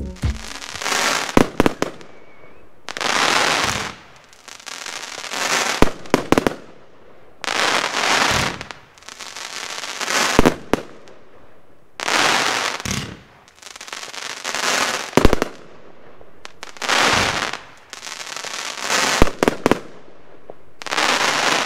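Pyrocentury Mad Dog, a 25-shot, 30 mm fanned crackling firework battery, firing. A volley of launches goes off about every two seconds, each followed by about a second of crackling as the star tails burn out.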